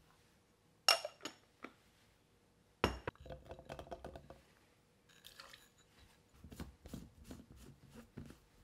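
Dishes and kitchenware being handled: a sharp ringing clink about a second in, followed by two lighter ones. Then comes a thump near three seconds, a spell of clattering, and a run of light knocks and taps.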